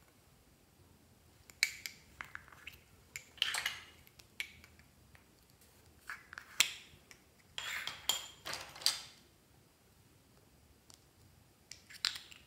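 Small plastic cosmetic pots being handled and twisted open: clusters of sharp plastic clicks and short scrapes with quiet gaps between, and a few more clicks near the end.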